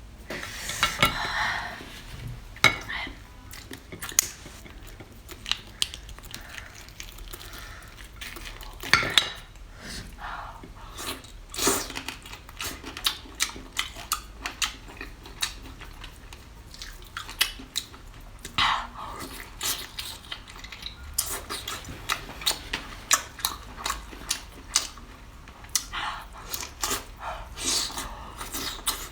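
Eating sounds: cutlery clicking and clinking against dishes at irregular intervals, with chewing between the clinks.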